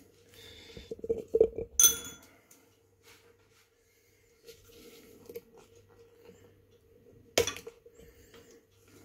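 Glass jars clinking and knocking as they are picked up and set down: a few knocks about one to two seconds in, and one sharp clink near the end.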